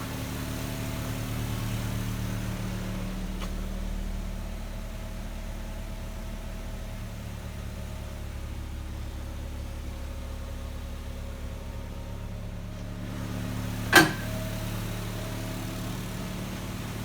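2000 Chevrolet Tracker engine idling steadily, an engine listed as having a lifter tick. Near the end there is one sharp click.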